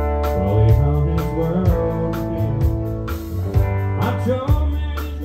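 Live country band playing between sung lines: electric guitar, keyboards, bass and drums, with the cymbal keeping a steady beat of about four strokes a second over held keyboard chords.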